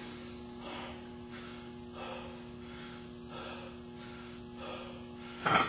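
A man breathing hard and fast, short heavy breaths about every two-thirds of a second, as he catches his breath at the top of a high-rep barbell squat set with 315 lb on his back. A louder, sharper breath comes near the end.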